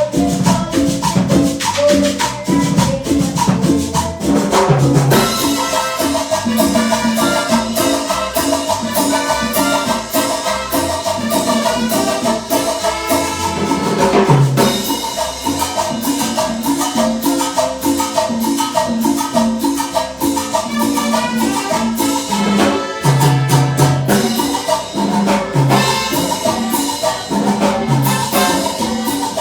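Live cumbia band playing an instrumental passage: a busy, steady beat with percussion and shakers under quick repeated pitched notes.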